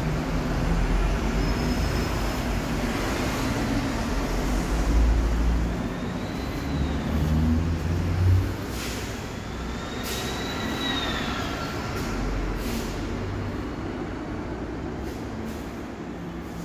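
Low rumble of passing vehicles outside, louder in the first half. Two high whines rise and fall a few seconds apart.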